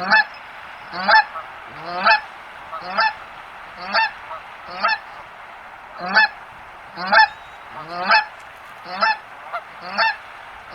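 A goose honking over and over, about one call a second, each honk rising in pitch, over a steady background hiss.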